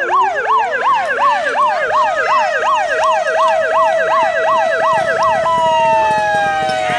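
Fire-engine siren sounding in a fast yelp, sweeping up and down about twice a second, over a second steady tone that rises in pitch during the first couple of seconds. The yelp stops about five and a half seconds in, leaving a held tone that slowly falls in pitch.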